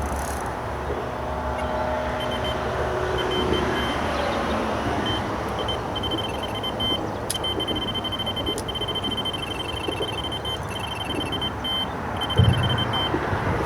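Electronic carp bite alarm giving strings of short high beeps, turned up loud, over a steady rumble of road traffic from a nearby bridge. A dull low thump near the end.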